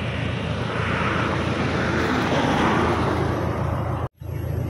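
Steady low drone of an engine running, with a rushing noise over it, unbroken except for an instant's dropout about four seconds in.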